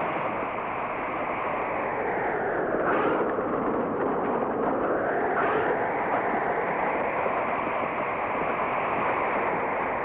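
Blizzard wind blowing steadily as a rushing noise, with two gusts that rise and fall in a whistle about three and five and a half seconds in.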